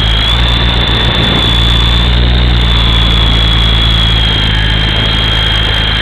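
Electric motors and rotors of an Esky Big Lama coaxial RC helicopter running close to the microphone: a steady high whine, shifting slightly in pitch, over a low rotor hum.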